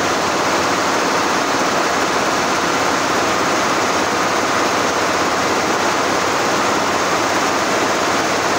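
Steady, loud mechanical running noise of multi-head embroidery machines on a factory floor.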